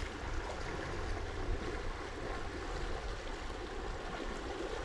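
Steady rushing of a river's current, with a low rumble of wind on the microphone.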